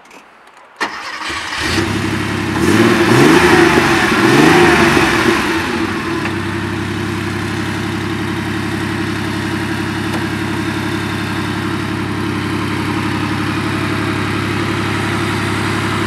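Porsche 930 Turbo's air-cooled 3.3-litre flat-six starting up about a second in, revved twice, then settling to a steady idle.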